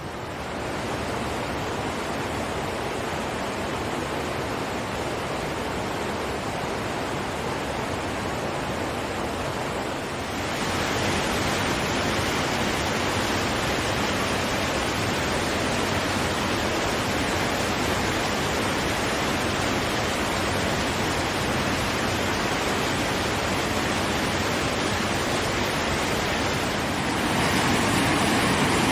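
Waterfall rushing: a steady noise of falling water that steps up louder about ten seconds in and again near the end.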